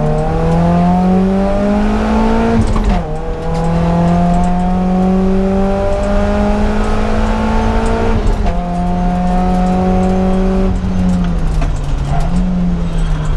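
BMW 318is four-cylinder engine heard from inside the cabin under hard acceleration, revs climbing, with a gear change about three seconds in and another about eight and a half seconds in. Near the end the revs fall away as the driver lifts off, with one short rise in revs.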